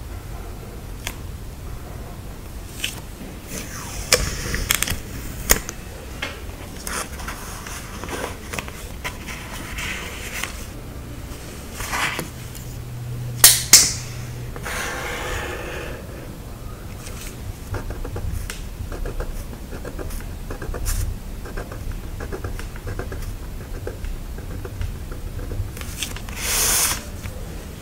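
Close-up sticker and paper handling: sticker sheets and paper scraping and rustling, with scattered small clicks and taps. About halfway there are two sharp clicks close together, the loudest sounds here, then a fast run of fine ticks for several seconds, and a longer rustle near the end.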